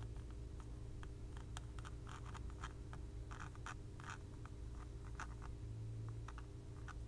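Soldering iron tip working flux and low-melt solder along a row of circuit-board pads, giving faint irregular scratching ticks. A steady low hum runs underneath.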